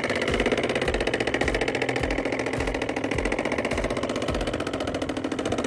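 Miniature hand tractor's model single-cylinder diesel engine (a scale Dongfeng 24 HP) running steadily with a fast, even chug.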